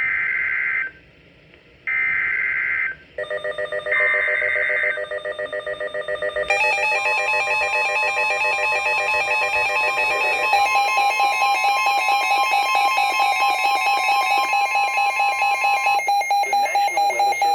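NOAA Weather Radio Emergency Alert System activation: three one-second bursts of screeching digital SAME header data with a second's gap between them, then a weather radio's rapid pulsing alarm beeps over the steady 1050 Hz warning alert tone, which cuts off near the end.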